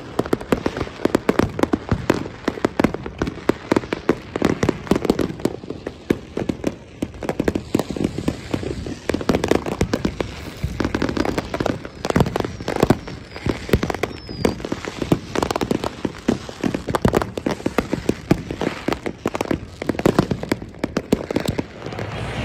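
Many fireworks going off at once: a dense, unbroken run of bangs and crackling, several reports a second.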